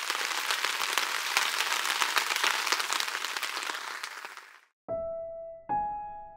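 Steady rain pattering, a dense crackle of fine drops, fading out about four and a half seconds in. After a short gap, music begins with two single struck notes that ring and fade.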